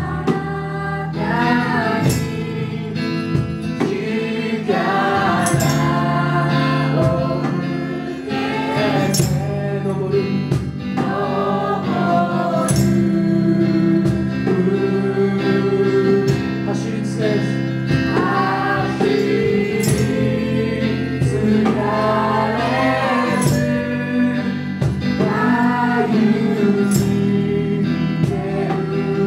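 Children singing a Christian worship song together into microphones over instrumental accompaniment, with a sharp high accent recurring about every second and a half.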